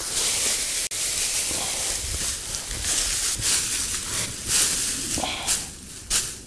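Straw mulch rustling as it is handled and spread by hand over a garden bed, in uneven bursts: the worn deep-mulch layer being topped up.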